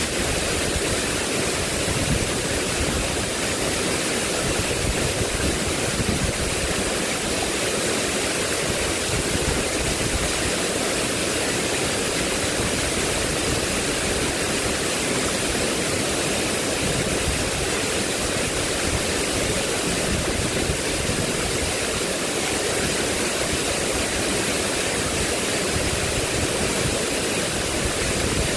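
Steady, unbroken rush of water with no change in level.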